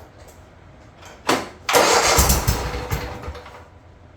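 Toro Titan Max zero-turn mower engine being cranked by its starter: a short burst, then about two seconds of loud cranking and firing that fades away before the engine settles. The mower is one the owner says often doesn't want to start.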